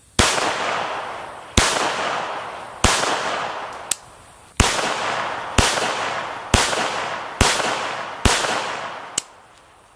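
Savage 1907 semi-automatic pistol in .380 ACP firing eight shots at about one a second, each sharp crack followed by a long fading echo. Two fainter sharp cracks fall between the shots.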